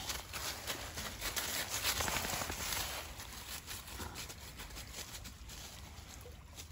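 Footsteps crunching and rustling through dry fallen leaves, a run of irregular crackles that is loudest about two seconds in.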